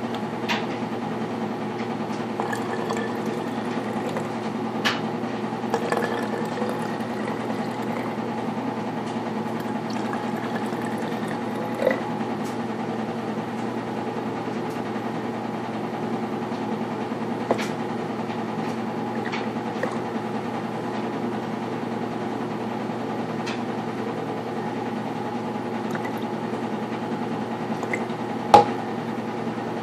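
Liquid being poured into plastic baby bottles over a steady low hum, with light clicks and knocks of bottles and containers being handled and one sharper knock near the end.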